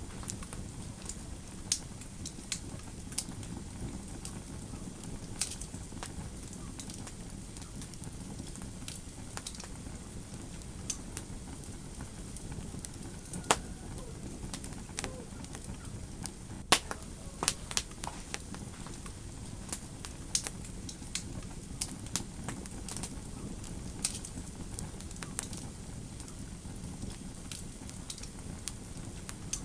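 Wood fire crackling in a fireplace: irregular sharp pops and snaps, a few much louder than the rest, over a steady low rushing of the flames.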